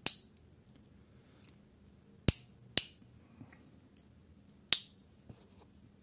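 Victorinox Huntsman Swiss Army knife tools snapping shut against their backsprings: four sharp clicks, at the start, twice close together a little past two seconds in, and again near the end, with a few faint ticks of the tools being handled between.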